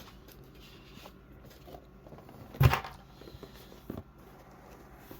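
Handling of small plastic action-figure accessories: faint light clicks and rustles, with one sharp knock about two and a half seconds in and a smaller click near four seconds, like a plastic piece set down on a hard surface.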